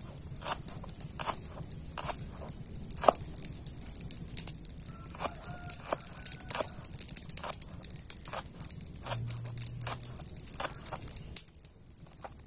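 Kitchen knife chopping shallots and garlic on a plastic cutting board: irregular sharp knocks, about two or three a second, pausing near the end.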